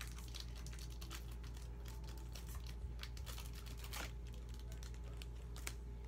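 Foil wrapper of a Pokémon booster pack crinkling and crackling as it is torn open by hand: irregular sharp crackles over a steady low hum.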